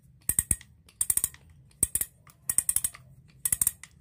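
Spinning fishing reels clinking and clattering against each other and the hard floor as they are handled, in five short bursts of sharp metallic clicks a little under a second apart.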